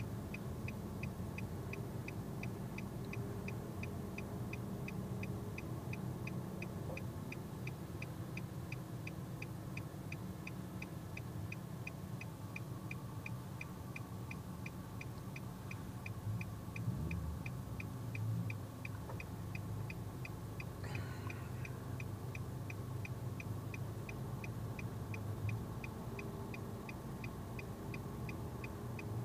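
A car's indicator relay clicking steadily, about two or three clicks a second, over the low hum of the car's idling engine heard from inside the cabin.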